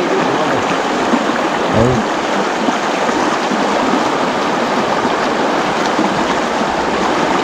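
Shallow river rushing over rocks in rapids: a steady, loud rush of water.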